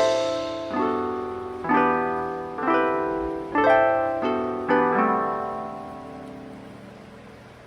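Background music: soft chords struck about once a second, each ringing and dying away, fading out over the second half.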